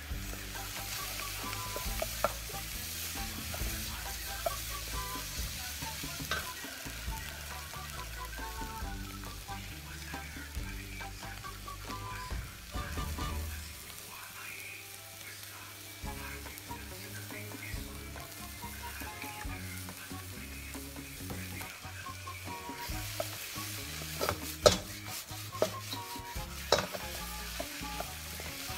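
Noodles and vegetables sizzling as they are stir-fried in a carbon-steel wok, with a wooden spatula scraping and tossing the food against the pan. Several sharper knocks of the spatula on the wok come near the end.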